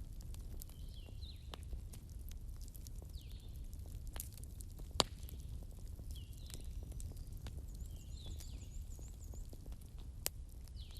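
Burning bonfire wood crackling irregularly over a low steady rumble, with a sharp louder pop about 5 seconds in and another near the end.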